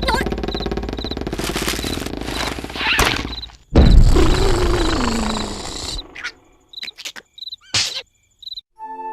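Cartoon sound effects: crickets chirping in a steady repeating rhythm over a loud snore. About four seconds in, a louder rush of noise comes with a tone sliding down. After a few short effects, music starts near the end.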